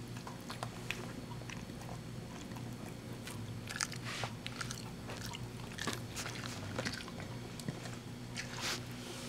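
Dachshund biting and chewing a crunchy duck-and-cheese dog treat, with irregular crisp crunches that come thickest in the second half.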